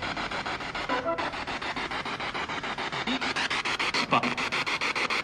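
PSB7 spirit box radio sweeping rapidly through stations, played through a small Bluetooth speaker. It makes a rasping, chopped static at about ten pulses a second, with brief snatches of broadcast sound about one second and four seconds in.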